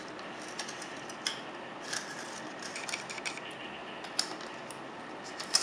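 Kanthal resistance wire being pulled off its spool for a coil build: a few scattered small clicks and ticks of wire and spool handling, over a steady background hiss.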